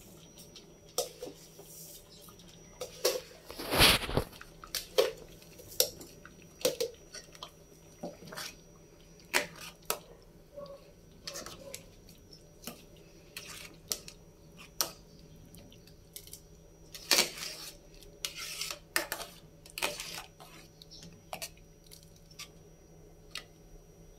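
Metal ladle knocking and scraping against a metal pot while stirring thick champorado (chocolate rice porridge), in irregular clinks and knocks, loudest about four seconds in and again a few times around seventeen to twenty seconds in.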